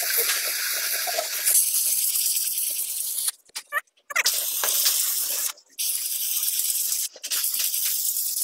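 Aerosol spray paint can hissing in long bursts. The hiss cuts off abruptly for about a second around three and a half seconds in, and briefly twice more.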